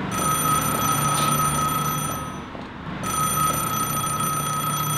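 Payphone ringing: two long rings, each about two and a half seconds, with a short gap between them.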